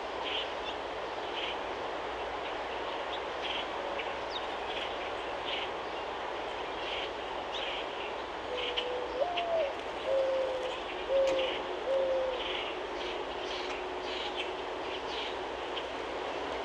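A dove cooing once, about halfway through: a low coo rising into a higher, falling note, then three even, lower coos. Short high chirps repeat about twice a second over a steady background rush.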